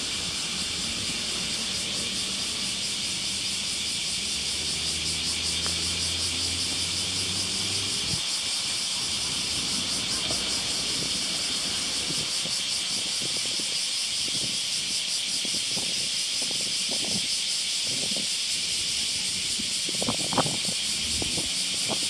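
A steady, high-pitched, finely pulsing chorus of small calling animals. Underneath it, a vehicle engine hums low and stops abruptly about eight seconds in. A short knock comes near the end.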